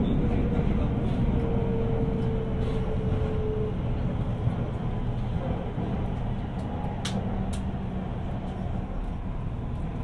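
Guangzhou Metro B2-series train running, heard from inside the carriage: a steady low rumble of wheels and running gear, with a faint whine that falls slightly in pitch over the first few seconds. The whole sound grows slowly quieter.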